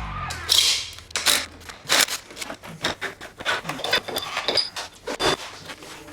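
Irregular clinks, knocks and scrapes of hand tools and metal parts being handled while a dirt bike is taken apart, some sharp strikes standing out.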